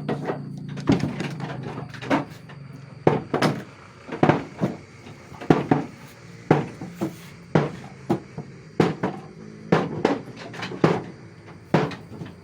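Irregular sharp knocks and clatter, about one or two a second, from Garut rams feeding on fresh grass in their pen.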